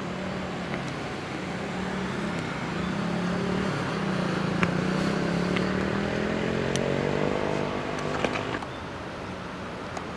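A motor vehicle's engine running, growing louder and rising in pitch from about four seconds in, then cutting off abruptly near the end, with a few light clicks alongside.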